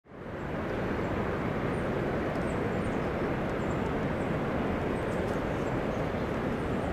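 Steady outdoor ambient rumble, even and unbroken, fading in at the start, with faint high chirps scattered over it.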